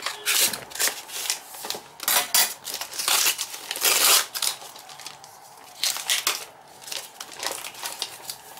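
White paper wrapping on a small parcel being cut with scissors and then torn and crumpled off the box by hand: irregular bursts of paper rustling and ripping.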